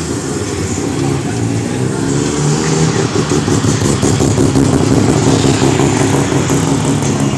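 Several sports cars, among them a first-generation Mazda RX-7, driving slowly past one after another with their engines running. The engine pitch rises and falls as they rev, a little louder around the middle.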